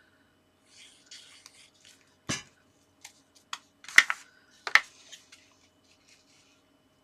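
Paper and card being handled on a craft table: soft rustling, then a few sharp taps and knocks as tools or pieces are picked up and put down, the loudest two close together past the middle.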